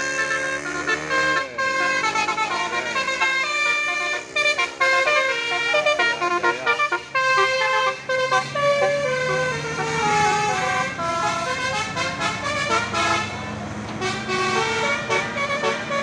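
A bus's 'telolet Basuri' musical horn playing a tune of held notes that step up and down in pitch, with a couple of sliding, siren-like sweeps in between.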